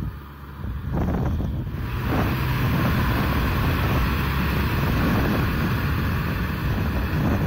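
Kubota M6040SU tractor's diesel engine running steadily under load as it drives a rotary tiller through flooded mud, with heavy wind noise on the microphone. The sound gets louder and fuller about two seconds in.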